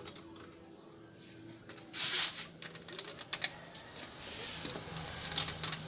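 A few light clicks as a hand works the front-panel power button of a Sharp slim CRT TV, switching it on to standby, after a brief rustle about two seconds in. A faint steady low hum sits under the clicks.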